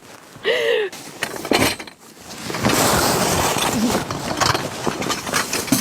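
Metal tent poles clinking and rattling as they are handled, over a dense rustle that starts about two and a half seconds in. A short vocal sound comes about half a second in.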